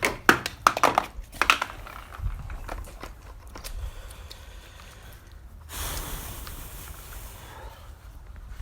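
Plastic clicks and knocks as a Karcher K2 pressure washer lance is unfastened and swapped, in a quick cluster at the start, followed by light handling. A little past the middle comes a hiss lasting about two seconds.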